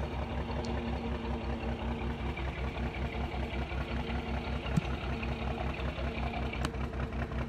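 1969 White 4000 crane truck's engine idling steadily with an even low throb, with a faint hum that fades out about two seconds in and a light click near five seconds in.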